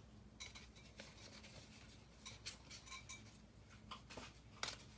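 Near silence, with a few faint, scattered clicks and rustles of trading cards being handled.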